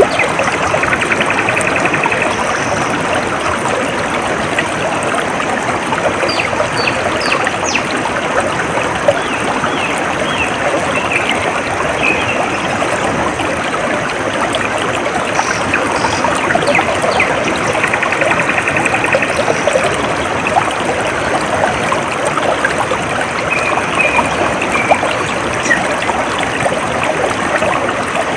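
A small stream trickling and babbling steadily, with small birds chirping now and then and a couple of short trills, one near the start and one past the middle.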